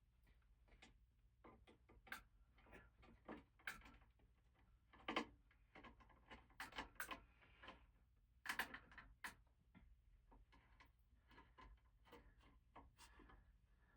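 Faint, irregular clicks and light taps of hands fitting a blade onto a NuTone Veranda Deluxe ceiling fan, a little louder about five seconds in and again past the middle.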